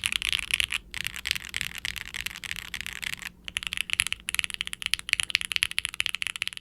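Fast typing on a Qwertykeys QK60 R3 mechanical keyboard with lightly re-lubed Gateron Oil King linear switches, a carbon fibre plate and GMK double-shot ABS keycaps: a dense run of keystroke clacks. The typing pauses briefly about a second in and again a little after three seconds in.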